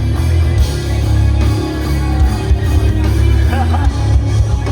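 Live rock band playing loud, with heavy bass and guitar.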